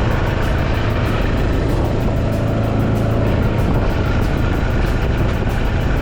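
A farm vehicle's engine running steadily while towing a line of K-line irrigation pods across the field.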